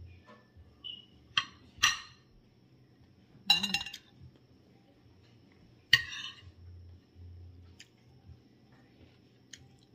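Metal spoon and fork clinking against a dinner plate while eating: four sharp, ringing clinks over the first six seconds, the third a longer rattle, then a few faint ticks.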